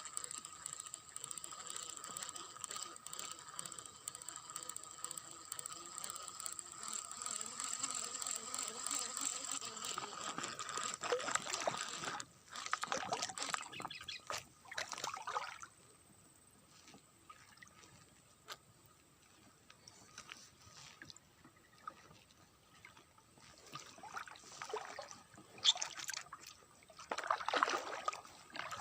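Abu Garcia Pro Max 3 baitcasting reel being cranked, giving a steady geared whir for about the first twelve seconds as line is retrieved. After that come a few short, uneven bursts of noise.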